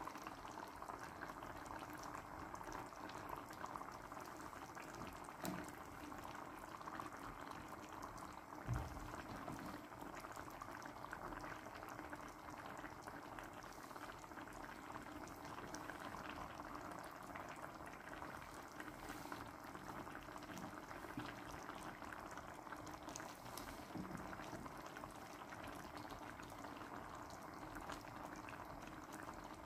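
Tomato broth bubbling steadily in a wide stainless steel pan around meat-filled dough dumplings as they cook. There is one soft knock about nine seconds in.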